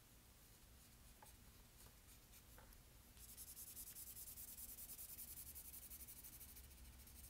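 Faint pencil shading on paper: quick back-and-forth strokes that start about three seconds in and keep going steadily.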